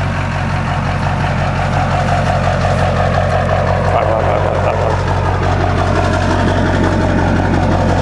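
Chevrolet Silverado 2500HD's 6.6-litre Duramax turbodiesel V8 idling steadily, heard close to its exhaust tip.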